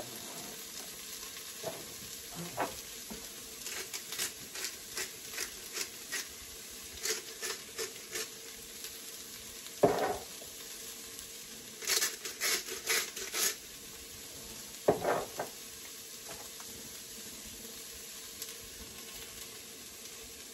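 Celery and carrots sizzling steadily in an electric pressure cooker's pot on the sauté setting, with scattered clicks and knocks from jars and cans being handled on the counter, the loudest knock about halfway through.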